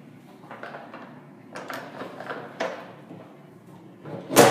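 Metal toilet-stall door and partition being knocked and rattled: a string of separate knocks and clatters, each ringing briefly, with the loudest knock near the end.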